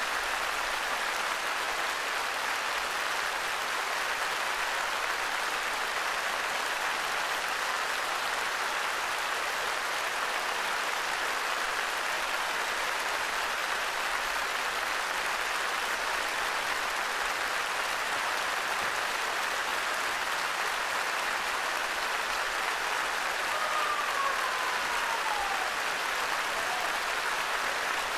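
Sustained applause from a large concert audience, an even, steady clapping, with a single falling tone rising briefly above it near the end.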